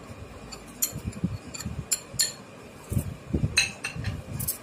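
Scattered clinks and taps of glass bowls knocking together as chopped coconut is tipped from a small glass bowl into a large glass bowl of puffed rice.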